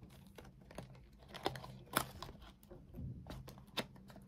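Blind-box packaging being crinkled and tugged by hand while someone tries to open it, with irregular sharp crackles, the loudest about one and a half, two and nearly four seconds in.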